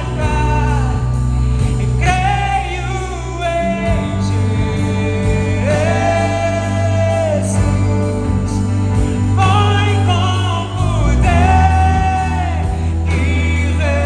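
Live gospel band and singers performing a Portuguese-language worship song. Long held sung phrases ride over the bass, drums, keyboard and electric guitar.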